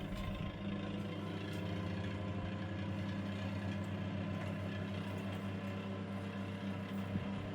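1970s Pifco Spinair 8-inch desk fan running with a steady electric motor hum. The rewired, freshly oiled motor still sounds a bit knackered.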